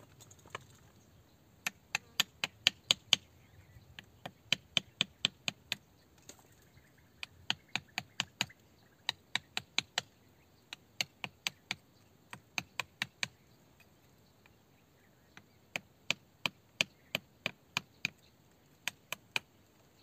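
Small hand tool striking a rock face repeatedly, chipping at the stone: sharp, clicking strikes in quick runs of about four to eight, roughly five a second, with short pauses between runs.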